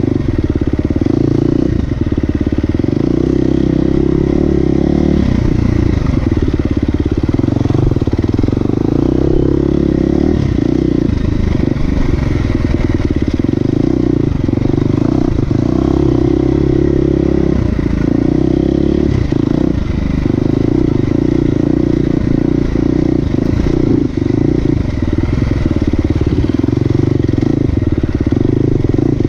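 Motorcycle engine running steadily under load, with short knocks and rattles scattered throughout.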